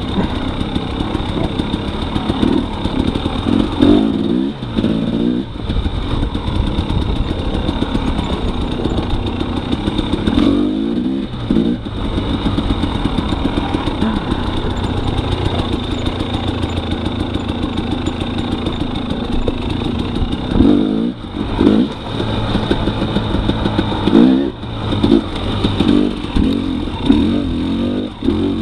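2018 Husqvarna TX300 two-stroke dirt bike engine running under way on the trail. The throttle is chopped and opened again a few times, so the revs dip and climb back up.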